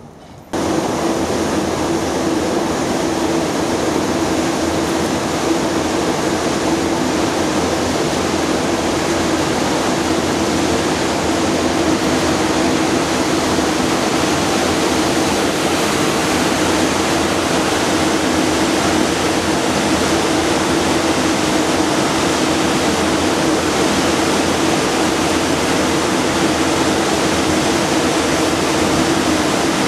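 Loud steady rushing noise with a faint low hum, starting abruptly about half a second in.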